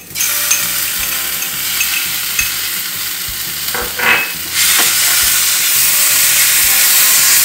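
Ginger-garlic paste sizzling in hot oil with onions in a pan while being stirred with a spatula. The frying gets louder a little past halfway.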